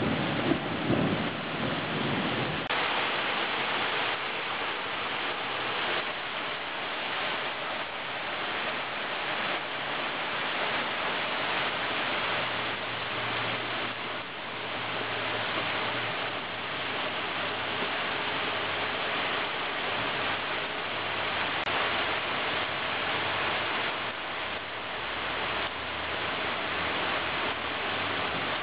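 Heavy cloudburst rain falling steadily and densely, with a low thunder rumble dying away in the first two or three seconds.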